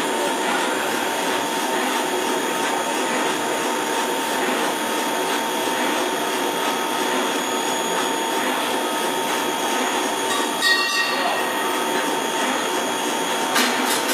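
SX2000-100 single-screw food extruder running steadily: an even mechanical noise with a steady high whine, and two brief knocks, one about two-thirds of the way through and one near the end.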